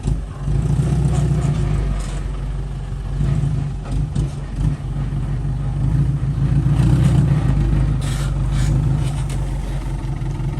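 Diesel engine of heavy earth-moving machinery running steadily, its loudness rising and falling a little as it works.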